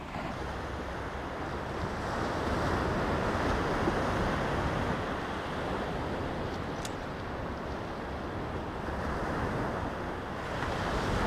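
Surf breaking and washing up a sandy beach: a steady rushing that swells and eases. A small click about seven seconds in.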